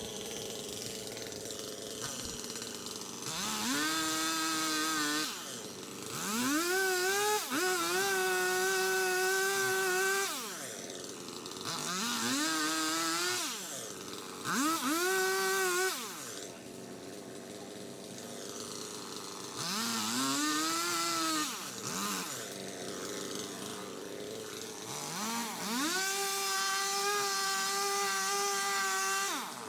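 Chainsaw cutting up a small cherry tree. It revs up from idle six times, each time holding at full speed for about one to four seconds, then dropping back to idle.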